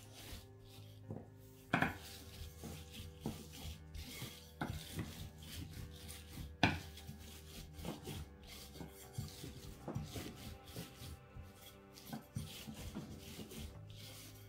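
Kitchen preparation sounds: irregular light knocks, taps and rubbing of utensils and dough on a work surface, with two louder knocks about two seconds in and near the middle. Soft background music runs underneath.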